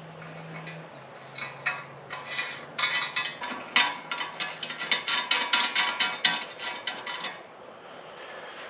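Hand tools and metal parts clicking and clinking in a rapid, irregular run for about six seconds, as 12 mm plugs with copper crush washers are fitted into the exhaust mid-pipe's O2 sensor ports.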